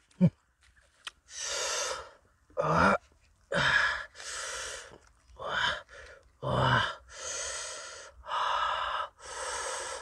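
A man eating, making loud breathy gasps and drawn-out exhales that alternate with short grunts and moans, about a dozen sounds in turn with short pauses between.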